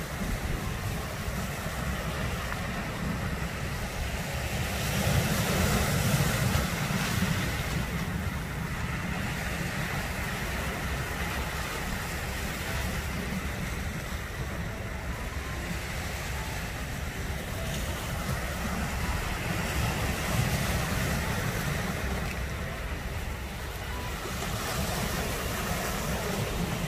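Sea waves breaking and washing over a rocky cobble shore, surging louder every so often, most strongly about five to seven seconds in. Wind rumbles on the microphone underneath.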